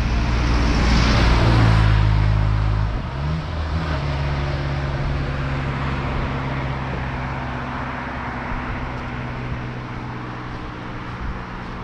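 A motor vehicle passes close on the road, its tyre hiss and engine loudest about a second or two in. The engine note shifts about three seconds in, then runs on steadily and slowly fades as the vehicle pulls away.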